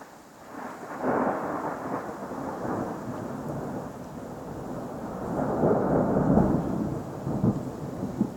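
Thunder from a nearby lightning strike: it breaks sharply about a second in, then rolls on in a long rumble that swells again around six seconds, with a couple of sharp cracks near the end.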